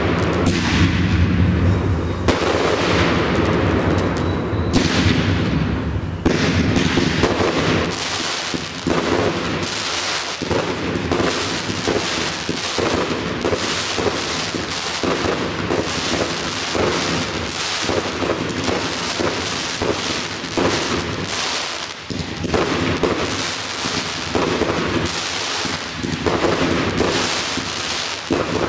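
Aerial firework shells bursting in a dense, continuous barrage, with bangs and crackles coming many times a second and no pause.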